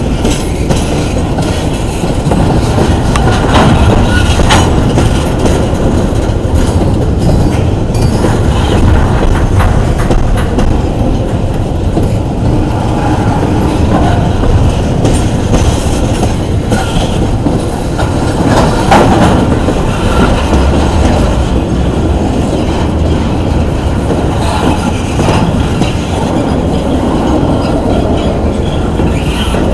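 Intermodal freight cars rolling past on the rails, a steady heavy rumble with wheels clicking over rail joints and brief squeaks from the wheels now and then.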